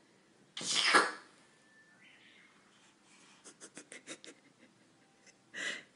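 A single loud, sharp sneeze about half a second in. Later come a quick run of faint ticks and a shorter breathy burst near the end.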